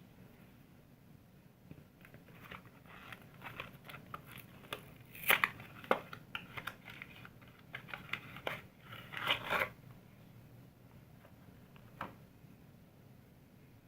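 Crinkling, scratchy handling noise in short irregular crackles and scrapes, loudest about five seconds in and again around nine seconds in, then a single click near the end.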